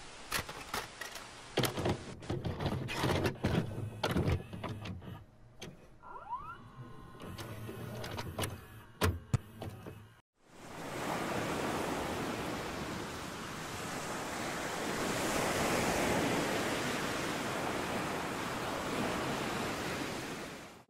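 Irregular mechanical clicks and clunks of a VHS cassette player starting playback. After a brief dropout about ten seconds in, the steady wash of ocean surf breaking on a sandy beach follows.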